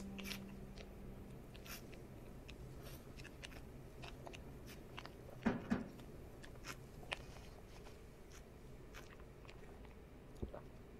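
Paper banknotes being handled: faint crisp rustles and small clicks scattered throughout, with a slightly louder pair about halfway, over a faint low hum.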